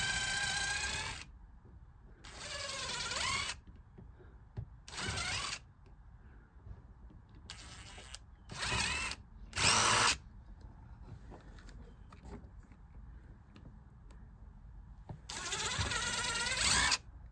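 Cordless drill boring a hole down through a wooden wall plate, run in about seven short bursts with pauses between them, its motor pitch rising and falling with each trigger pull.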